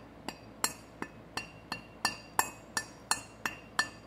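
Rubber mallet tapping a greased bearing race down into the bevel gear case of a Toro Groundsmaster 4500-D rear gearbox: a steady run of sharp taps, about three a second, each with a short metallic ring.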